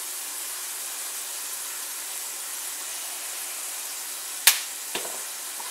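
Meat frying in a cast-iron skillet, a steady sizzle, with one sharp knock about four and a half seconds in and a lighter one half a second later.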